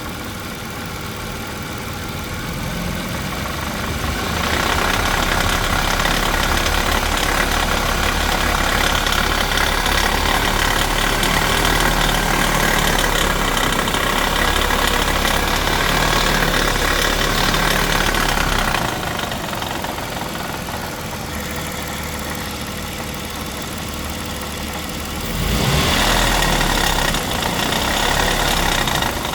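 Dodge Intrepid 2.7 L V6 running, heard near the catalytic converter, with knocking and rattling from inside the converter's can, the sign of its catalyst substrate breaking up. It gets louder about four seconds in, drops back about two-thirds of the way through, and rises again near the end.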